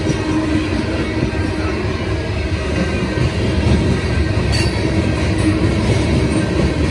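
Loaded coal hopper cars of a CSX freight train rolling past, a steady loud rumble of steel wheels on the rails.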